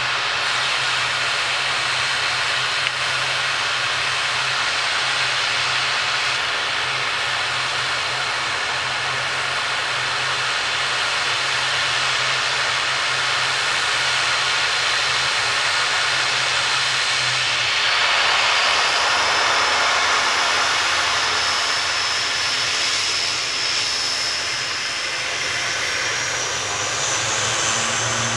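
Aircraft engines running with a steady loud rush and a high whine, the whine climbing in pitch about two-thirds of the way through as a low hum drops away.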